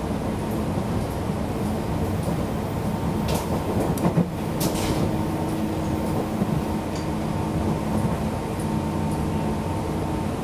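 Cabin noise inside a KRL Commuter Line electric train: a steady rumble and hum. A few sharp clicks come about four seconds in, and a second steady hum joins just after them.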